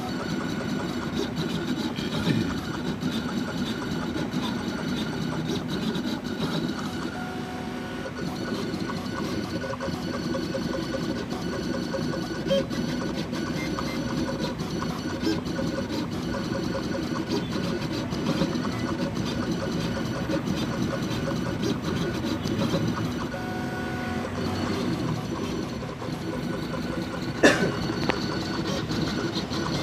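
Jinka vinyl cutting plotter cutting sticker vinyl: its motors whir and whine steadily as the blade carriage and roller move, the pitch shifting now and then. A sharp click sounds near the end.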